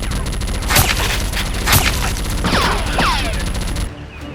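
Gunfire sound effects dubbed over a toy-gun fight: a running volley with two sharp shots about a second apart, then two falling whistling tones. The volley cuts off suddenly near the end.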